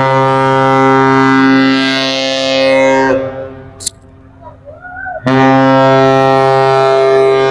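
Ship's horn of the freighter MV Federal Biscay sounding two long, deep, steady blasts: one about three seconds long, then after a two-second pause a second blast that starts about five seconds in and is still going at the end.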